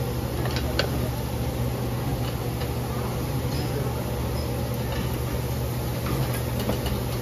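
Indistinct background chatter over a steady low hum, with a few light clicks.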